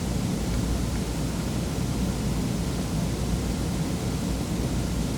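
Steady hiss with a low hum underneath: the recording's background noise, with no distinct event.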